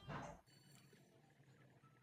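Background music cuts off with a short burst of noise lasting under half a second, then near silence: faint room tone.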